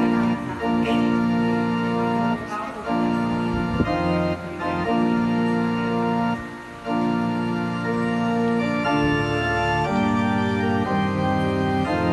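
Organ music: slow, sustained chords held for about two seconds each before moving to the next.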